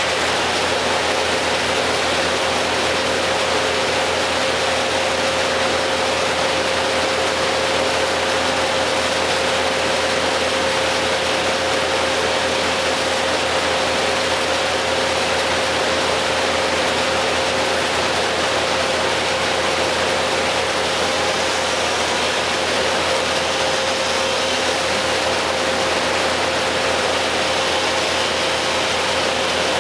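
Steady machine noise from an engine running at constant speed, with a steady whine over it that does not change.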